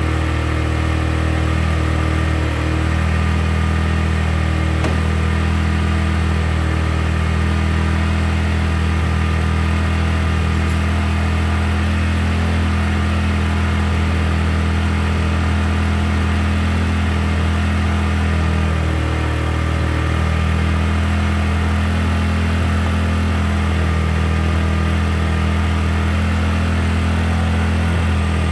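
TVS Apache RTR 4V single-cylinder motorcycle engine idling steadily while its fuel mixture is being adjusted.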